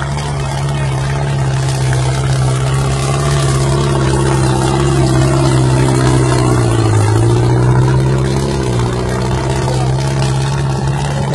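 Farm tractor's diesel engine running hard under load as the tractor drives past close by. Its pitch dips briefly about seven seconds in, then picks back up.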